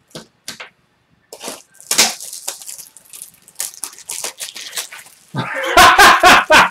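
A man laughing loudly in rapid pulses near the end, after a few seconds of scattered faint short sounds.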